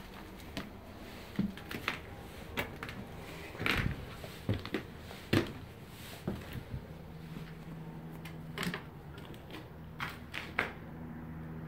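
Footsteps on an old wooden staircase and floorboards: irregular knocks, thuds and creaks of wood underfoot, the loudest about halfway through.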